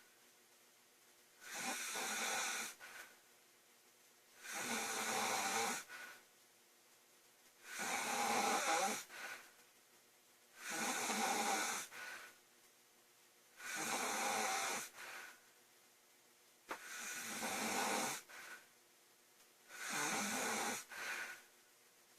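A woman snoring loudly in her sleep, with seven snores about every three seconds. Each snore lasts just over a second, with quiet breaths between them.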